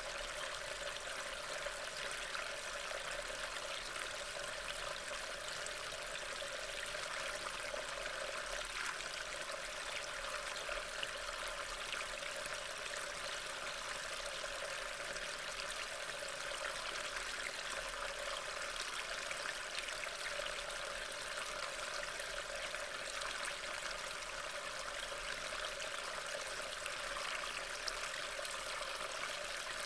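Steady rain falling, an even hiss with no distinct events, picked up by a trail camera's microphone.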